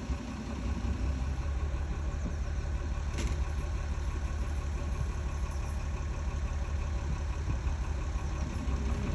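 Diesel engine of a small miniature-railway locomotive running steadily at low revs as it approaches slowly, with one sharp click about three seconds in.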